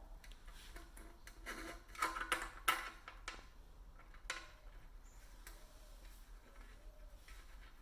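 A quick run of small clicks and taps, then one more a moment later, as the small metal and rubber parts of a tubeless valve are handled and fitted at the wheel rim.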